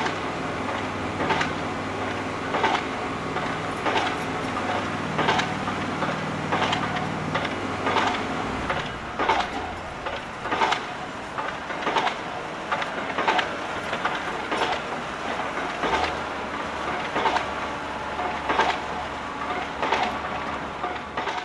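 Small electric motors of a Lego Technic 8043 motorized excavator running steadily, with a sharp click repeating evenly about every second and a third from the turning plastic gearing.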